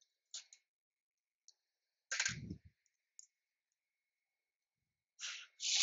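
Hand tools clicking against engine parts, with one louder clunk about two seconds in. A short burst of hiss comes near the end.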